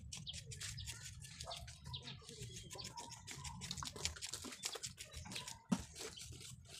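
Small birds chirping, over scattered clicks and rustles of hands working on a raw pig's head, with one sharp click near the end.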